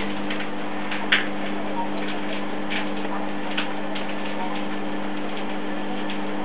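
Steady low hum with a few faint, short ticks scattered through it.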